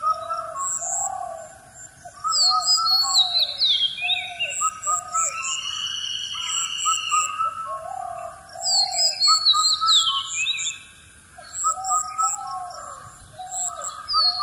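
Birds chirping and calling, with a lower cooing call among the chirps. The same run of calls comes round again about every six seconds, like a looped background recording.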